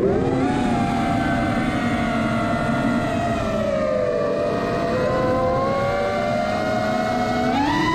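Electric motors and propellers of a multirotor drone whining, their pitch following the throttle. The pitch climbs at the start, sags in the middle and climbs again near the end, over a steady rush of propeller air.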